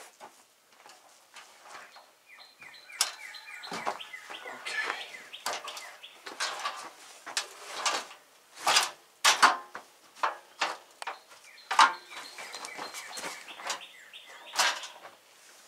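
Aluminium stepladder being handled and set up, giving a series of irregular metal knocks and clanks, the loudest in the second half, with birds chirping in the background.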